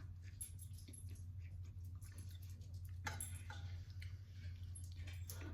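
Faint eating sounds from a person eating ramen noodles up close: scattered small mouth and utensil clicks, a short louder noisy sound about three seconds in and another near the end, over a steady low hum.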